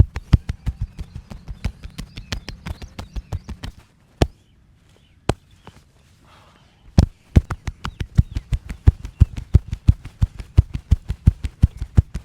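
Rapid percussive massage strikes, hands slapping and tapping on the body, several dull thuds a second. The strikes stop about four seconds in, with only a few single hits for about three seconds, then start again at the same fast pace.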